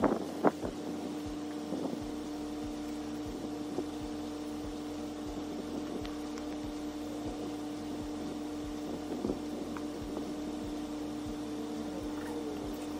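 A steady, even-pitched mechanical hum. Near the start come a couple of sharp knocks as a mesh pen is staked at its corner.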